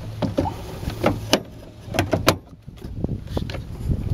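A string of sharp clicks and knocks as the plastic, magnet-mounted cup holder and the cup in it are handled.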